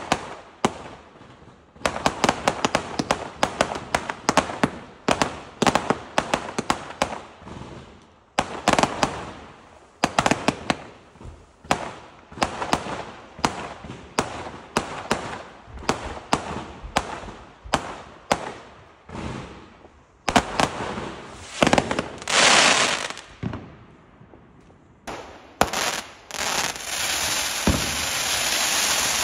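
Fireworks going off in rapid volleys: strings of sharp cracks and pops, one after another, with brief lulls between bursts. A longer hiss comes after the middle, and near the end a steady rushing hiss takes over.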